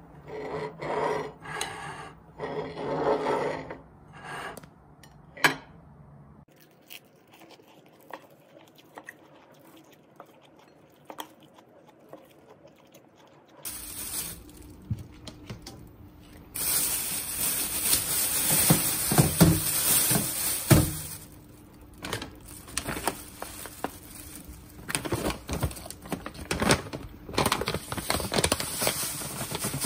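Kitchen handling sounds: dishes clinking and knocking at first, then after a pause a loud rush with rustling and scraping while a metal range hood filter is handled in a sink lined with a plastic bag.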